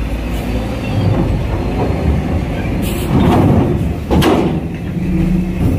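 Heavy trucks rolling off a ferry ramp with their engines running, and two sharp clanks about three and four seconds in.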